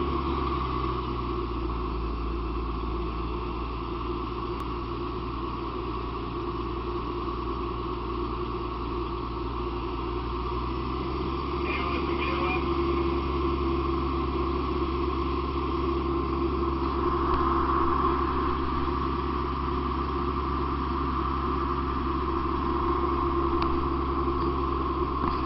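Fire apparatus engine running steadily at the pump, supplying water to the hoselines, a constant drone.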